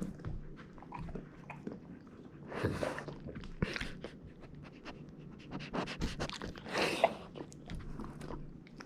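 A dog chewing on a crunchy donut with many sharp crackling clicks, and panting in three louder breathy bursts.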